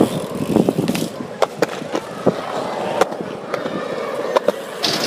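BMX bike riding on hard pavement: tyres rolling with a steady noise, broken by irregular sharp clicks and knocks.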